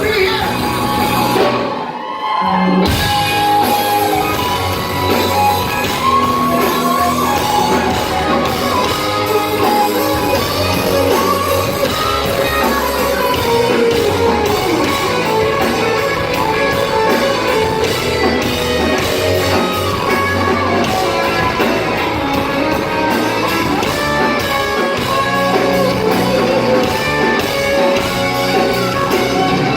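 Live heavy rock band playing loud in a club, with electric guitars, bass and drums, recorded from the crowd; the sound drops out briefly about two seconds in, then the full band carries on.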